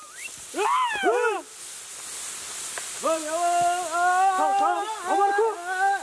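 A man's voice singing long, wavering calls: two short rising-and-falling calls about a second in, then a long held, ornamented call from about three seconds in. This is a threshing song sung while driving oxen round the threshing floor to tread the wheat.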